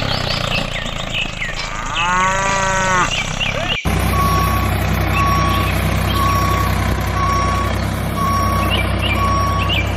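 A cow moos once about two seconds in. From about four seconds a vehicle engine runs steadily while a reversing alarm beeps about one and a half times a second.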